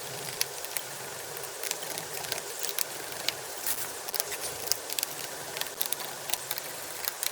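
Small Torx screwdriver backing screws out of a laptop's bottom cover: scattered small clicks and ticks of metal on metal, over a steady hiss.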